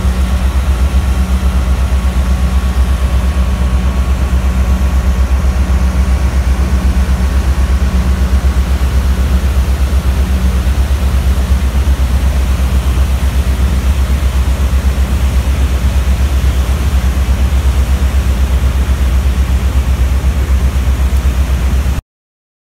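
Heavy diesel demolition machinery running steadily with a low drone. A humming tone in it fades out about ten seconds in, and the sound stops abruptly near the end.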